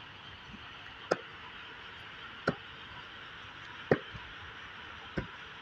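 Spade blade chopping into hard, dry, stony soil: four sharp strikes, evenly spaced about a second and a half apart.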